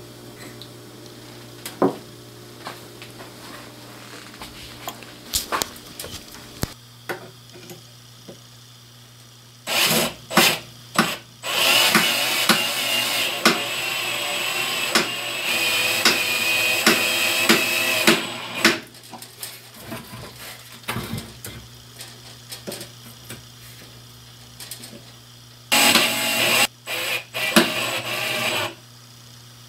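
Cordless drill driving wood screws into pressure-treated 2x2 lumber. A few short bursts come first, then a steady run of about seven seconds, then another group of short bursts near the end, with small handling clicks and knocks in between.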